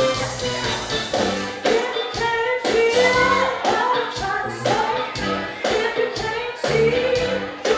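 Music with a singing voice, held and gliding sung notes over a steady beat.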